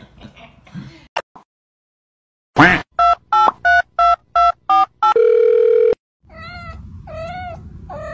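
Touch-tone telephone dialing: seven quick two-note beeps followed by a steady tone lasting under a second. After that a white kitten meows three times.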